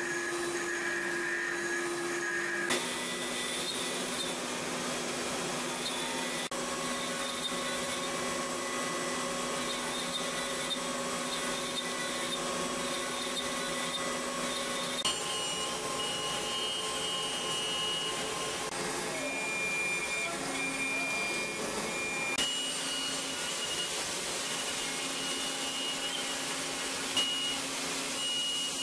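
CNC machining centre milling a mold core: steady spindle whine and cutting noise, its tones jumping abruptly to new pitches several times as different end mills and passes run.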